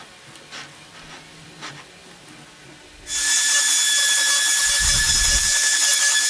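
A compact trim router switched on about three seconds in, running at full speed with a steady high whine as it cuts into the wood, with a short low rumble about midway through the run. A few faint knocks come before it starts.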